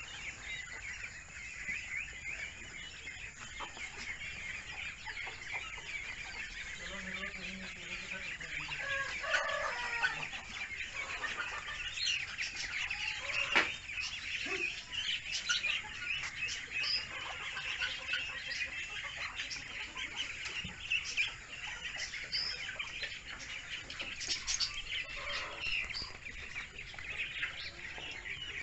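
A brood of Muscovy ducklings peeping continuously, many high chirps overlapping. A lower call breaks in about a third of the way through, and there is one sharp knock about halfway.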